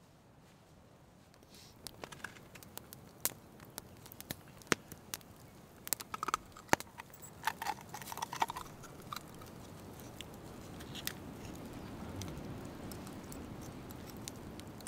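Knife prying open a raw oyster: a quick run of sharp clicks and crunches of the blade working against the shell, with a few short squeaks, easing into softer steady noise.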